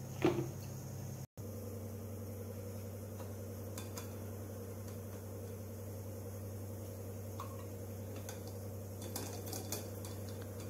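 Steady low hum, with a few light clicks and taps of a steel mesh strainer and bowl being handled while soaked rice and dal are drained. A brief louder clatter comes just after the start, and the clicks gather near the end.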